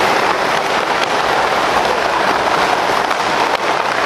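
Quad roller skate wheels of several skaters rolling across an indoor sport-court floor: a steady rushing noise with occasional light clicks.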